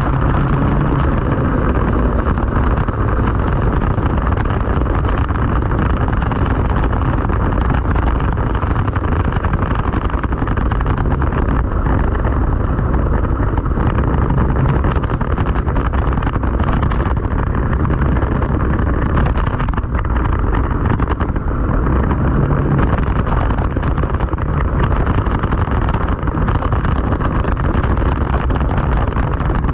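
Racing kart's engine running at low speed, heard from a camera mounted on the kart, with wind noise on the microphone.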